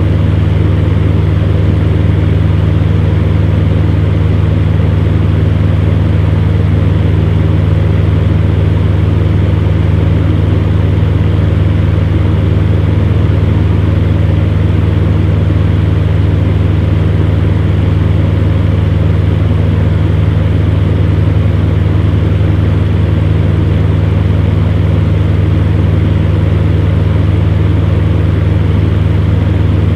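Electric fan running steadily: a constant low motor hum under an even rush of moving air.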